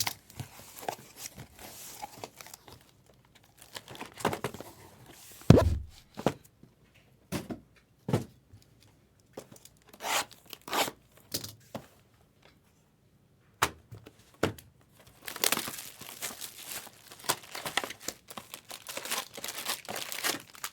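Trading card pack wrappers being torn open and crinkled in short rustling bursts, with a dull thump about five and a half seconds in.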